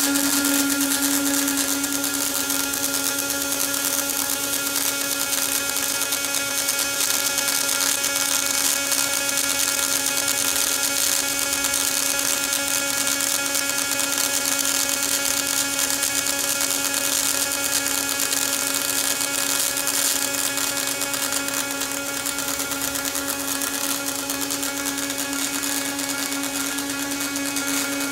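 Robotic wire-fed (MIG) welding arc burning continuously along a seam: a steady hissing buzz with a constant low hum-like tone under it, easing slightly in level near the end.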